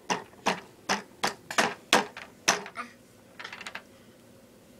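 A run of sharp taps, about three a second, from a baby's hand slapping a hard plastic toy, followed a little past three seconds in by a quick flurry of lighter clicks.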